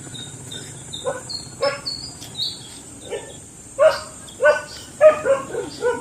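A dog barking repeatedly, about eight short barks at uneven spacing, the loudest in the second half.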